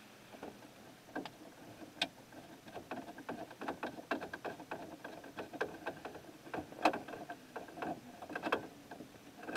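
Screwdriver turning a screw into the plastic radio dash-kit mount: a run of irregular small clicks and scraping ticks of metal on plastic, with a few sharper clicks.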